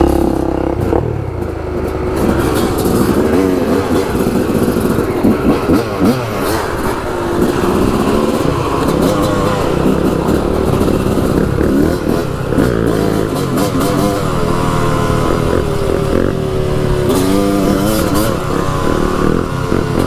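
Yamaha dirt bike engine revving up and down as it is ridden along a rough dirt trail, the pitch rising and falling with the throttle over and over. Rattling knocks from the bike come through a few times.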